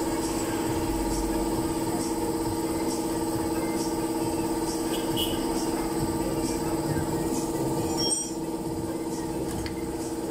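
A steady machine hum with a few constant pitches, easing slightly about eight seconds in, with faint light ticks over it.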